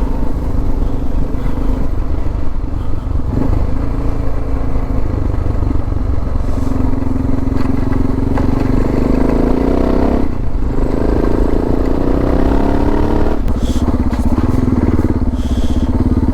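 Suzuki DR650's single-cylinder four-stroke engine running under way, rising in pitch as the bike accelerates, with a gear change about ten seconds in, then rising again and shifting once more about three seconds later.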